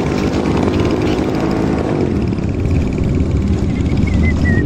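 A vehicle's engine running steadily while driving, heard from on board, with road rumble and wind noise on the microphone.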